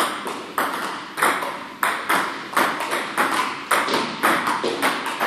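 Table tennis forehand rally: a celluloid-style ping-pong ball clicking off the paddles and bouncing on the table in a steady, even rhythm, about two sharp clicks a second.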